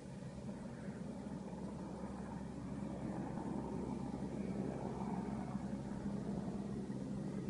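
Firefighting helicopter with an underslung water bucket flying at a distance, its rotor and engine a steady low drone that grows slightly louder.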